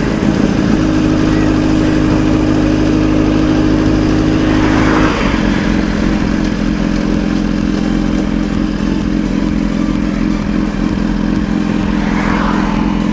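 Litre-class sport motorcycle engine running at steady cruising revs under way, its note stepping down to a lower steady pitch about five seconds in.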